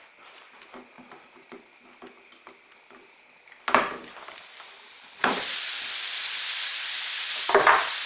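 Pliers clicking faintly as they twist a screw out of a tyre's tread. About four seconds in the screw comes free and pressurised air starts hissing out of the puncture, becoming a loud, steady hiss a second later.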